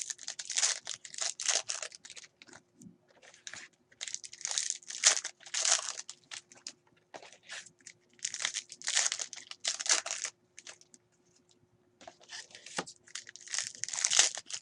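Foil trading-card pack wrappers being torn open and crinkled by hand, in irregular bursts of rustling and tearing with brief pauses between them.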